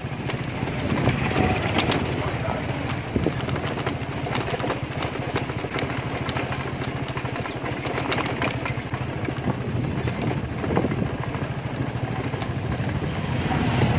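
Motorcycle engine running steadily while riding along a rough dirt road, with scattered knocks and rattles from the bumps.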